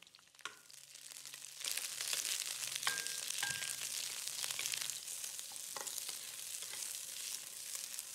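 Bell pepper and onion chunks sizzling in hot oil in a wok. The sizzle comes up about a second and a half in and runs steadily while a wooden spatula stirs them, with a few light taps against the pan.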